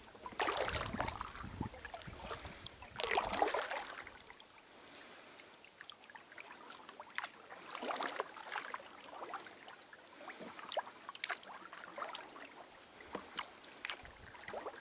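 A kayak paddle dipping and splashing in calm creek water, with two stronger strokes in the first four seconds, then lighter splashes and scattered drips.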